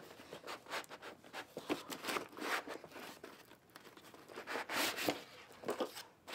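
Cardboard box packaging handled by hand: the inner tray with its end caps slid out of the outer sleeve, in an irregular run of short scrapes and rustles, with a longer rustle past the middle.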